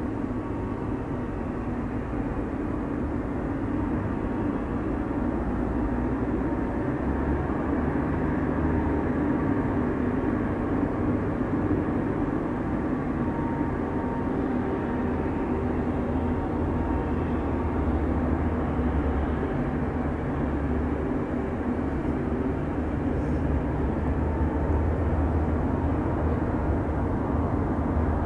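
Steady jet aircraft noise on an airport apron, with a deeper drone that comes in about seven seconds in and rises and falls.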